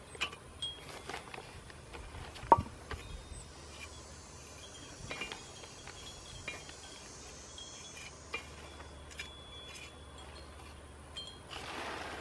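Light clinks and taps of a small hand tool against a glazed ceramic flower pot as Portland cement is worked onto it, with one sharp clink about two and a half seconds in and a short scrape near the end.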